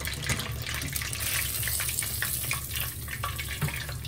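Battered cod deep-frying in a pot of hot oil: a steady sizzling hiss with scattered crackles, strongest at the high end about one to two seconds in.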